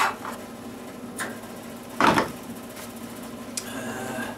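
Plastic fuel cap being unscrewed and lifted off a small engine's fuel tank, with handling noise: a couple of light clicks and one louder scraping rub about two seconds in.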